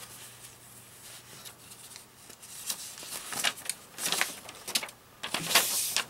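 A folded paper instruction manual being opened out and handled, rustling in irregular bursts from about halfway in, loudest near the end. A faint steady hum sits underneath.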